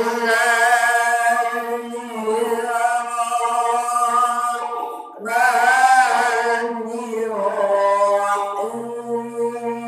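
A man's voice chanting long, held melodic phrases with a wavering pitch, breaking off briefly for breath about five seconds in.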